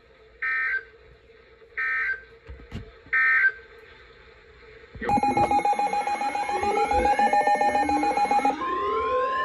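Emergency Alert System header data tones: three short screeching digital bursts about a second apart, starting the next warning. About five seconds in, a loud steady alert tone starts, with rising and falling siren-like sweeps over it, and near the end it changes to a slightly higher steady tone.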